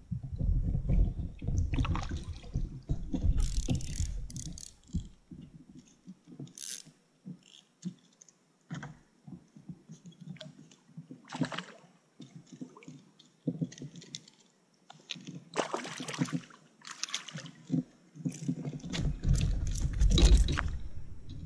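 Knocks, scrapes and water sloshing as a perch is reeled in on a spinning rod and lifted into an inflatable canoe. A heavy low rumble in the first few seconds and again near the end, with scattered sharp clicks and rustles between.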